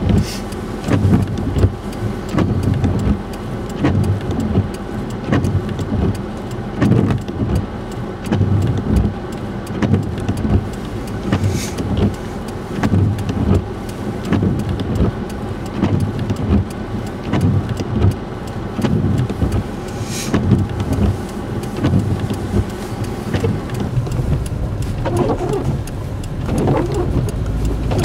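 Traffic on a snow-covered road: vehicle engines running and tyres in slush, with an uneven low rumble that swells and drops every second or so.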